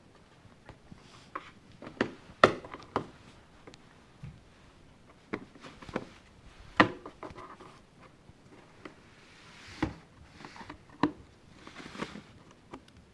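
A cat pawing and scratching at the closed end of a box: irregular knocks, taps and short scuffs, the loudest about two and a half seconds in and again near seven seconds.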